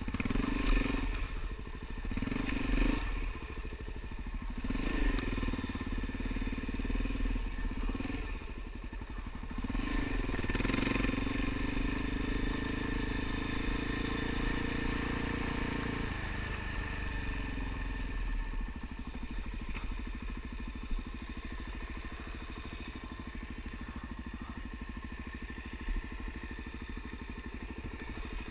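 Suzuki DR-Z dual-sport motorcycle's single-cylinder engine pulling in short bursts of throttle over rough ground, then a sustained pull of several seconds. After that the throttle closes and the engine falls back to a quieter low running.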